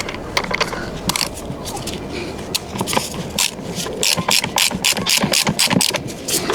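A quick, irregular run of sharp mechanical clicks and rattles, growing denser and louder about four seconds in.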